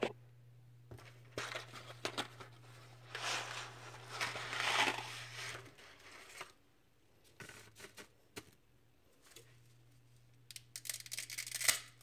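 Packaging torn open and crinkled by hand, in two rough stretches, the second a run of short crackles near the end. A low steady hum stops about halfway and comes back later.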